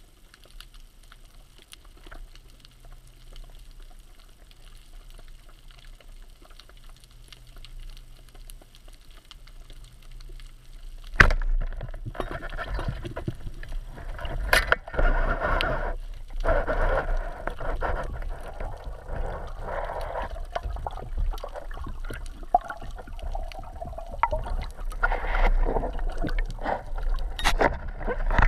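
Heard underwater through a camera housing: faint low rumble and scattered small clicks, then about eleven seconds in a single sharp crack as a rubber-band speargun fires. After it comes loud rushing water and bubbling, with a few more sharp clicks, as the diver swims up to the surface.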